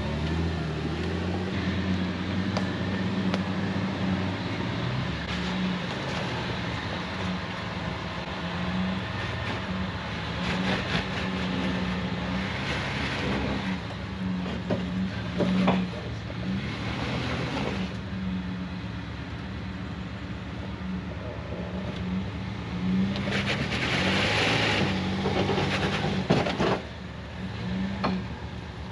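Jeep TJ engine running as it drives over an off-road trail, its pitch stepping up and down with the throttle, with several louder rushing noises partway through and again near the end.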